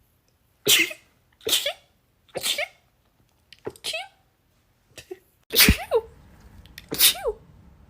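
A person sneezing in a rapid series, about six sneezes about a second apart, the last two the loudest.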